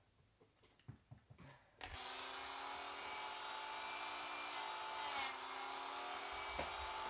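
A small power carving tool starts about two seconds in and runs steadily against wood, a hum under a hiss, then cuts off abruptly near the end.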